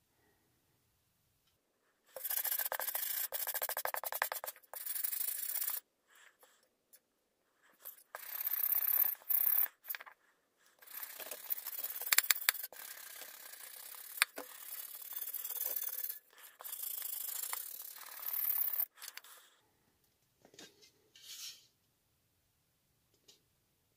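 A hand-held pad rubbing over the painted steel shell of an M40/M42 helmet to wear and age the fresh paint. It goes in runs of quick scrubbing strokes with short pauses, then a few faint scuffs near the end.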